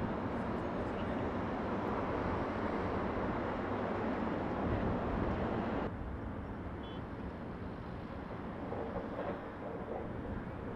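Steady noise of a car assembly plant, machinery and general factory-hall noise, which drops abruptly to a quieter, duller noise at a cut about six seconds in.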